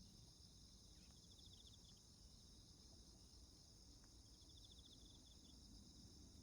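Faint chorus of insects chirring steadily, with a short pulsed trill about a second in and another from about four to five and a half seconds in, over a low background rumble.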